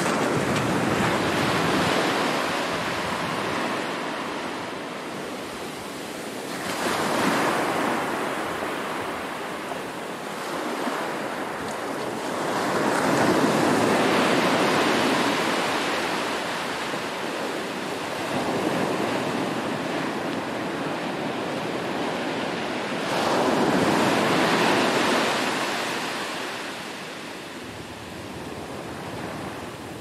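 Small ocean waves breaking and washing up a sandy beach. The surf swells and fades in a slow rhythm, a new break about every five to six seconds.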